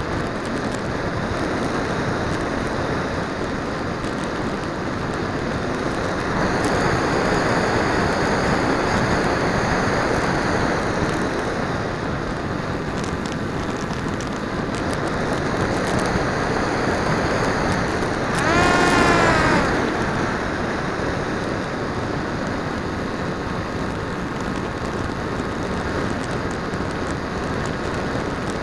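Onboard-camera audio of an R/C flying wing in flight: a steady rush of wind over the airframe and microphone mixed with the motor and propeller, louder for a few seconds starting about six seconds in. About two-thirds of the way through, the motor gives a short whine that swoops in pitch, the loudest moment.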